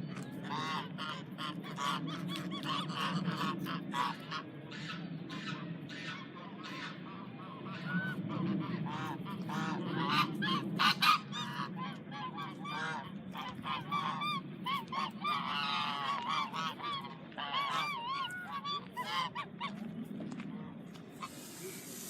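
Geese honking, many short calls in quick succession over a low steady hum.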